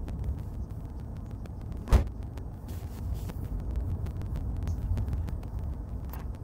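Steady low rumble, with one sharp knock about two seconds in and faint clicks, as hands handle the threaded fittings on gas-meter piping.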